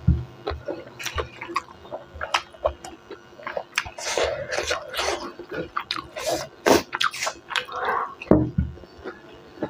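Close-up wet chewing and lip-smacking of a person eating rice and beef curry by hand: a run of irregular squelchy mouth clicks.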